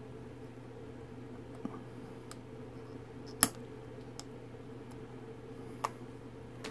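Small clicks and taps of fingers handling the parts of a Dinky 131 E-Type Jaguar 2+2 diecast toy car. One sharp click stands out about three and a half seconds in, with a lighter one near the end, over a steady low hum.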